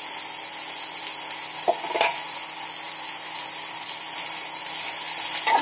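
Chopped vegetables sizzling as they fry in oil in a kadai, with a steady hiss, stirred with a slotted metal spatula; a short sharper scrape of the spatula about two seconds in.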